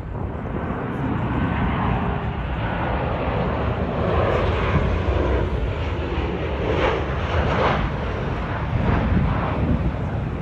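Twin-engine jet airliners passing low on landing approach, a Boeing 737 among them: a steady rush of jet engine noise.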